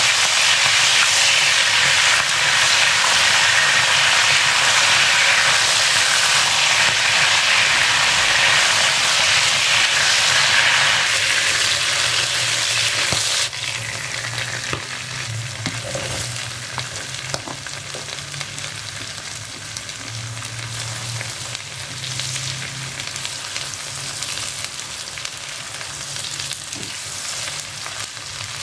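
Dried squid frying in hot oil in a wok, a steady loud sizzle with a silicone spatula stirring. About halfway through the sizzle drops suddenly to a lower level, with a few light spatula taps against the pan.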